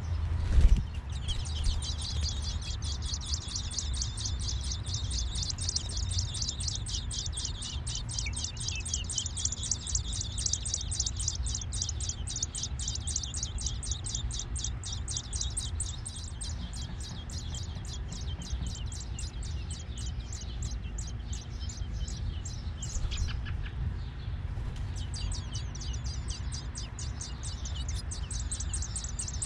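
American robin nestlings begging: a fast, unbroken train of high-pitched chirps, several a second, that eases off briefly about three quarters of the way through and then picks up again. A steady low rumble runs underneath, and there is one thump just under a second in.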